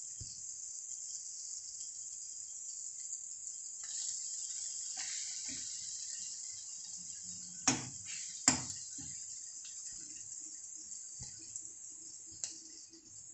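Onion-tomato masala frying in oil in an iron kadhai while gram flour is sprinkled in and stirred with a steel spatula: a steady high sizzle, with two sharp clanks of the spatula against the pan about eight seconds in and a lighter tap near the end.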